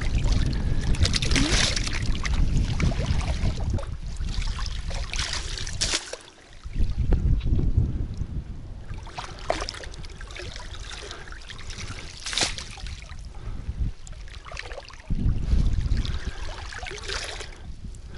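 A landing net is swept through shallow, muddy water and lifted out, giving repeated splashes with water trickling and dripping from the mesh. Wind rumbles on the microphone underneath.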